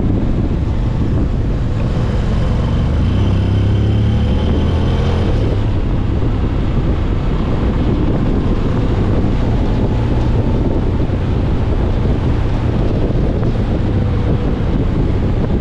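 Heavy wind rush on the microphone of a moving Honda X-ADV 750 motorcycle over the low drone of its engine. About two seconds in, a faint engine tone rises for a few seconds as the bike accelerates, then levels off.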